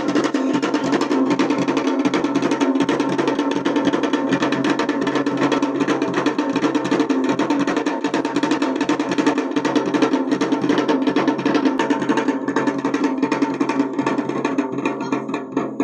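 Loud music with fast, continuous drumming over a steady held tone; near the end the drumming breaks into more separate strokes.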